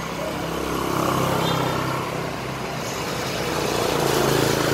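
Passing road traffic: a steady engine hum that swells twice, about a second in and again near the end, as vehicles go by.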